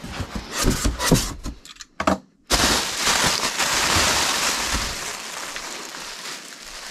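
Packaging being handled and opened: a run of knocks and rustles, then, after a short gap, a few seconds of continuous crackling that slowly fades.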